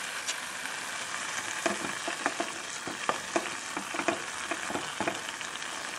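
Chopped mustard greens bubbling and sizzling in an open aluminium pressure-cooker pan. A wooden spatula stirs them, and from about a second and a half in it knocks and scrapes repeatedly against the pot.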